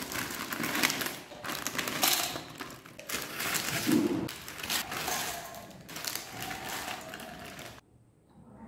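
Foil potato-chip packets crinkling as they are shaken and emptied, with crisps tumbling into a steel bowl in several noisy bursts. It cuts off suddenly near the end.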